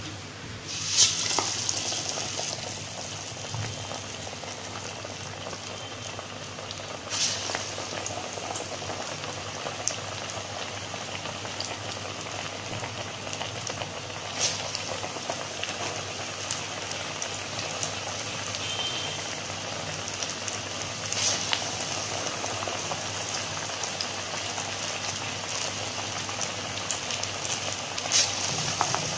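Dal fritters (paruppu vadai) deep-frying in hot oil in a kadai: a steady sizzle, with a sharp hiss about every seven seconds as another patty is dropped into the oil, five times.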